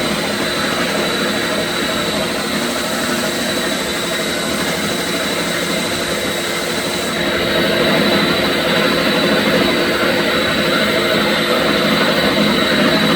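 Flex-shaft drain-cleaning machine running steadily with a constant whine, while descaling a sewer pipe. About seven seconds in, the sound changes and grows slightly louder.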